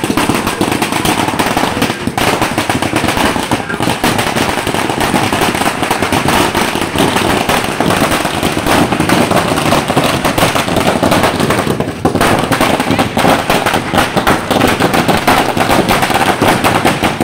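A long string of firecrackers going off in a rapid, continuous chain of sharp bangs, with a few brief breaks.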